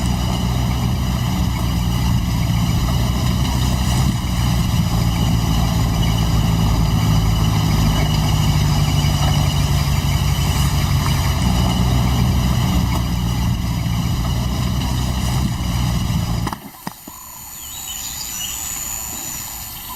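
Motor vehicle engine running steadily with a low, even hum. It stops abruptly about sixteen and a half seconds in.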